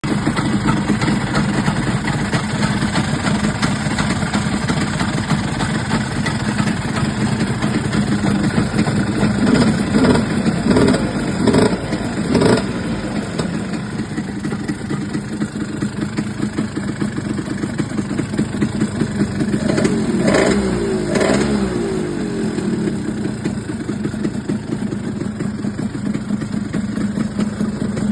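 1950s Vespa scooter's two-stroke single-cylinder engine idling steadily, with short throttle blips: a run of several quick revs around ten to twelve seconds in and two more around twenty seconds in.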